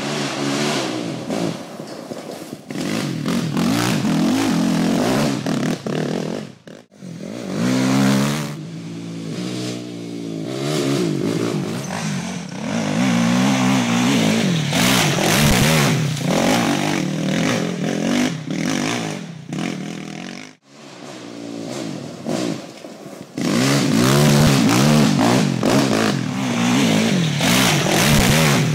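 Sport quad (ATV) engines revving and accelerating on a dirt trail, the pitch rising and falling with the throttle as the quads pass. The sound drops away briefly about seven seconds in and again about twenty seconds in.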